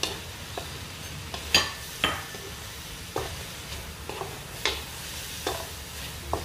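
Wooden spatula stir-frying string beans and other vegetables in a metal wok, with a light sizzle and irregular knocks and scrapes of the spatula against the pan, the loudest about one and a half and two seconds in.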